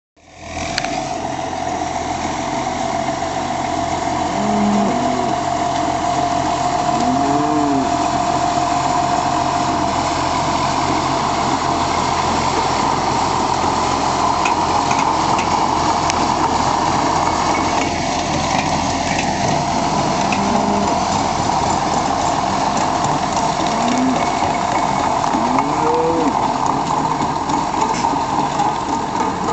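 A John Deere tractor's engine runs steadily while pulling a square-bale feeder that is breaking out hay, with a steady whine from the machinery. Cattle moo a few times, near the start and again near the end.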